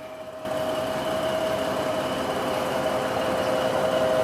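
Large heavy-equipment engine running steadily, with a steady whine over the engine noise; the sound cuts in abruptly about half a second in.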